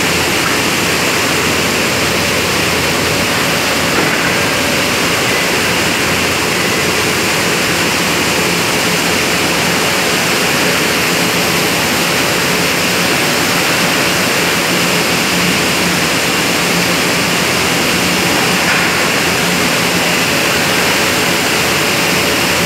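Steady, loud rushing noise with a faint low hum running through it, unchanging throughout.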